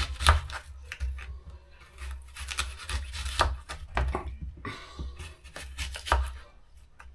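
Sharp kitchen knife slicing unpeeled eating apples into wedges on a wooden chopping board: a series of short cuts through the fruit, with the blade knocking on the board, loudest near the start, about halfway and near the end.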